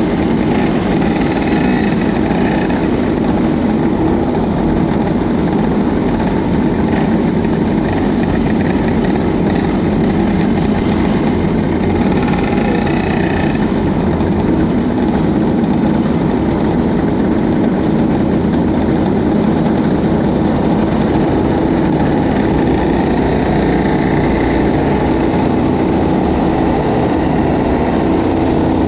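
A field of IAME KA100 100cc two-stroke kart engines idling together, one of them close to the microphone. The sound is loud and steady throughout.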